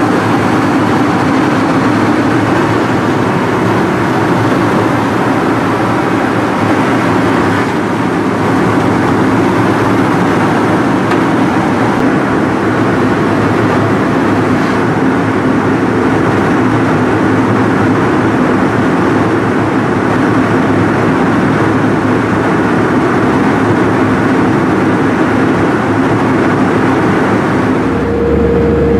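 Steady cabin noise of an Airbus A319 airliner in cruise flight, an even rushing sound with a low hum underneath. Near the end the hum changes to a higher steady tone.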